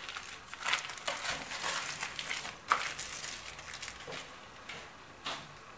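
Plastic bag crinkling and rustling as it is handled: a quick run of crackles over the first few seconds, then two more single crinkles near the end.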